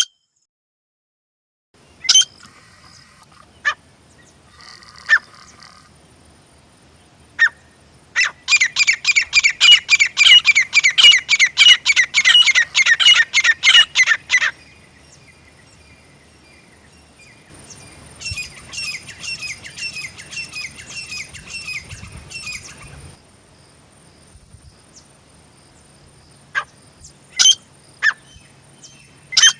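Grey francolin calling: a few separate sharp calls, then a long run of loud, evenly repeated notes at about four a second lasting some six seconds. A fainter run of the same notes follows, and single calls come again near the end.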